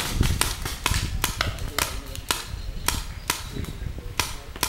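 Paintball markers firing: a quick, irregular run of sharp pops, about fifteen in under five seconds, some close together.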